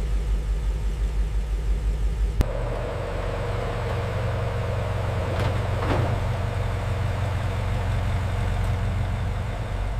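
A car engine running steadily. About two and a half seconds in, the engine note changes abruptly to a different steady sound.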